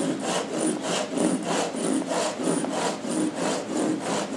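Japanese hand saw cross-cutting the end off a hard, dense pecan mallet barrel, in steady, even strokes a few times a second.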